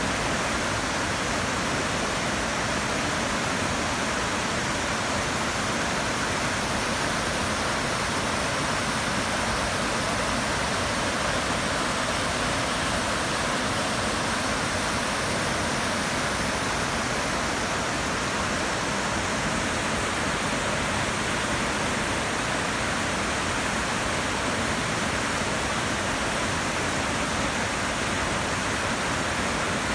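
Waterfall rushing: a steady, unbroken roar of falling water that holds the same level throughout.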